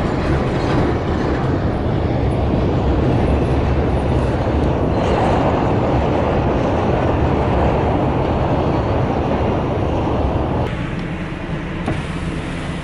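A truck driving: a steady low engine drone under road noise. The road noise eases off about eleven seconds in.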